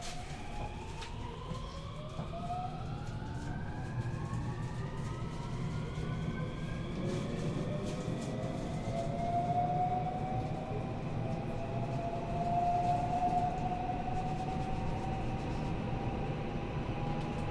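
521 series electric train accelerating, heard from inside its motor car: the inverter and traction motor whine climbs in pitch as several tones rise together, then levels off near the end, over the steady rumble of wheels on rail.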